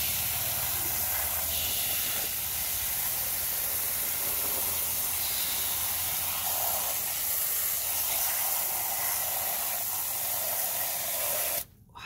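Jet of water spraying a muddy plastic toy bulldozer and the turf around it: a steady hiss of spray that cuts off suddenly near the end.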